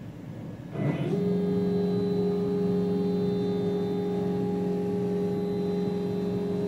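NEMA 34 stepper motors driving a CNC router's Y-axis gantry at a slow, steady 119 inches per minute: a constant-pitch motor whine and hum that starts about a second in as the gantry begins to travel.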